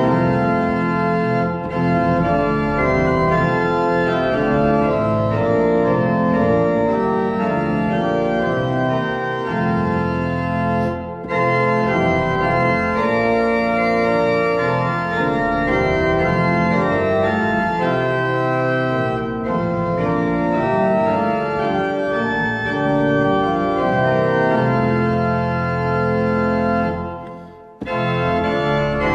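Organ music playing long, sustained chords. It breaks off briefly just before the end and then resumes.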